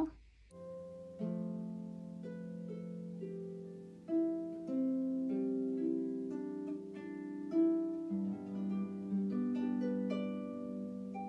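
Instrumental background music with a gentle melody of plucked notes that ring on, starting about half a second in.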